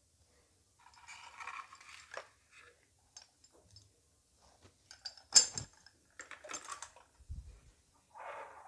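Glass test tubes and a plastic test tube rack being handled on a bench: scattered light clattering and rustling, with one sharp click about five seconds in and a dull low thump a couple of seconds later.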